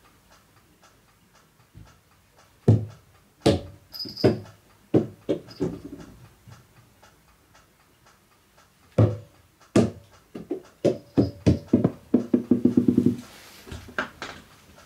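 Small rubber super balls dropped onto a wooden floor, each bouncing with quicker and quicker bounces that die away into a rattle; two drops, about three seconds in and about nine seconds in.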